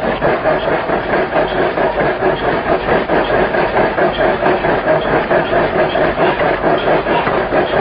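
A power forging hammer strikes a red-hot disc forging in quick regular blows, about three a second. This is the finishing stage after upsetting, when the barrel-shaped bulged sides are rolled round and the faces flattened.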